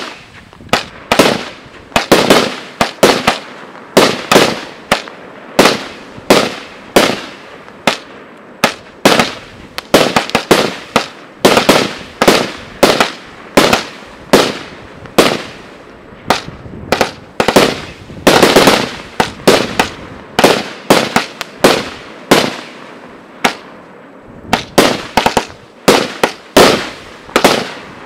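A 100-shot fireworks compact (cake) firing its shots in quick succession: a steady string of sharp reports, about two to three a second, each shell bursting in the air.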